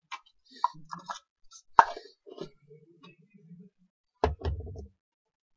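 Small wooden matryoshka nesting dolls being handled: a series of sharp wooden clicks and knocks as the painted halves are pulled apart and fitted together, with soft scraping in between. A heavier wooden thump comes about four seconds in.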